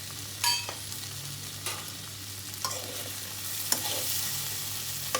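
Chopped okra sizzling steadily as it shallow-fries in oil in a pan, while a spatula stirs it, scraping and clinking against the pan about five times. The loudest, ringing clink comes about half a second in.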